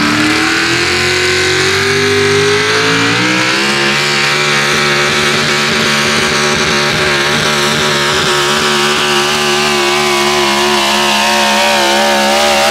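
Supercharged engine of a 6,200 lb 4x4 pulling truck at full throttle under load, revving up over the first three to four seconds as it launches, then holding high revs steadily as it drags the weight-transfer sled down the track.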